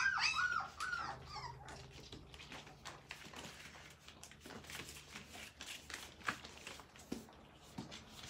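Young puppy whimpering in a quick run of short high cries, about four a second, that die away about a second in. Faint rustling and small clicks of it being handled follow.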